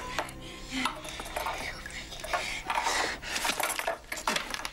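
Hands scuffling over a sheet of paper on a wooden table: paper crinkling and rustling, with scattered knocks and clinks.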